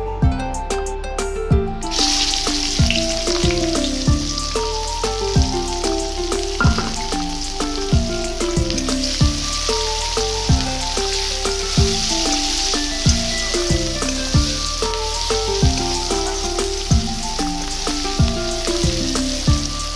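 Sliced onions hitting hot oil in a kadai start sizzling abruptly about two seconds in, then fry with a steady hiss. Background music with a regular beat plays underneath.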